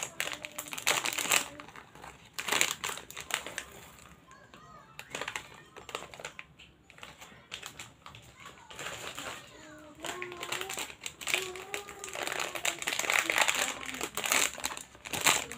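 Plastic Ciki Panser snack packets crinkling as they are torn open and emptied into a bowl, in several bursts with a quieter stretch in the middle.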